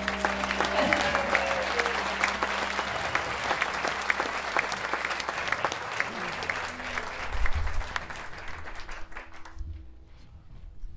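Audience applauding as a live band's song ends; the clapping dies away near the end.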